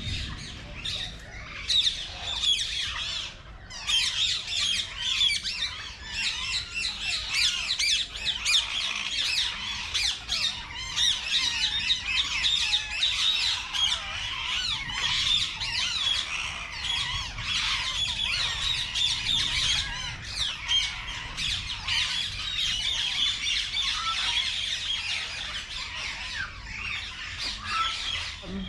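Many birds squawking and chattering together, a dense, continuous din of short, rapid, high calls.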